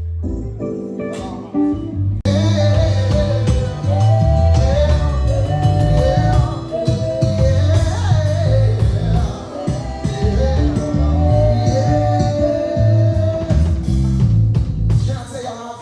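Live band playing a blues-tinged tune with guitar and singing. It opens sparse and fills out to the full, louder band about two seconds in.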